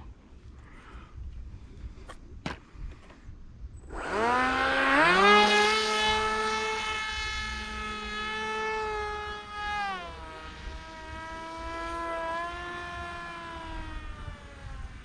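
Electric motor and propeller of a foam RC flying wing spinning up about four seconds in to a steady high whine. The pitch drops near ten seconds as the throttle comes back, and the sound grows fainter toward the end.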